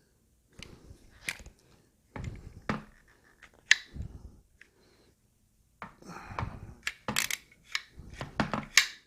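Clicks, clacks and scraping of a Hi-Point 995 carbine's metal and plastic parts being handled and worked during reassembly, in scattered bursts with the sharpest clacks near the end.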